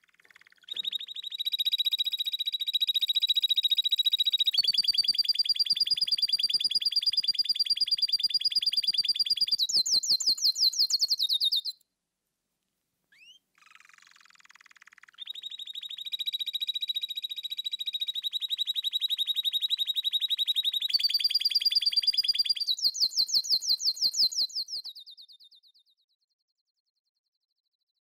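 Songbird singing two long, very fast rolling trills of about ten seconds each, with a short pause between them. Each trill shifts up in pitch partway through and ends in a quicker, higher flourish.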